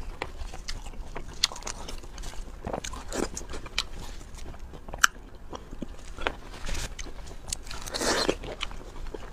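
Close-miked eating sounds: a person biting and chewing food, with irregular crunches and clicks, one sharp snap about five seconds in, and a longer spell of crunching near the end.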